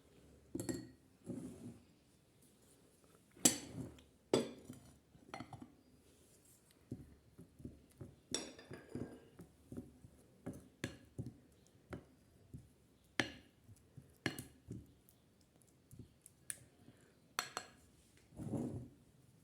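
Glassware and kitchen utensils clinking and knocking together irregularly, with a few louder strikes that ring briefly.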